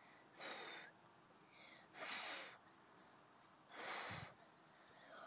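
A child blowing on a dandelion clock: three strong puffs of breath about a second and a half apart, with a fainter puff between the first two.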